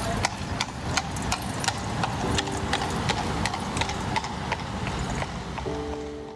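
Horse's hooves clip-clopping on the asphalt road as a horse-drawn carriage trots by in street traffic, about three hoofbeats a second. Piano music comes in near the end.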